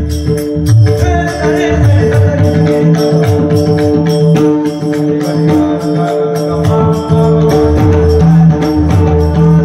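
Instrumental kirtan accompaniment: a harmonium holding steady notes over drum strokes, with small hand cymbals jingling in a rapid, even rhythm.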